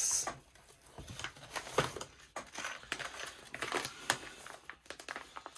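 Cardboard kit box and its packaging being handled and opened: irregular crinkling and rustling with light clicks and knocks.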